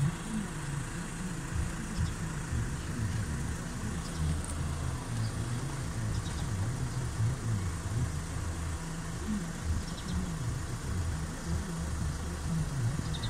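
A van's engine idling steadily, a low even hum.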